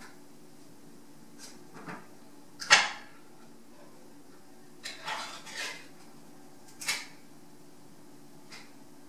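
A handful of short clinks and knocks over a steady low hum. Small ones come about one and a half and two seconds in, the loudest nearly three seconds in, then a quick cluster around five seconds and another near seven.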